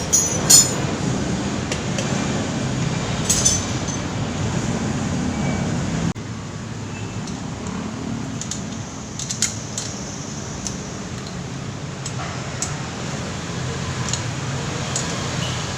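Scattered sharp metal clinks of tools and engine parts being handled, over a steady background rumble that drops abruptly about six seconds in.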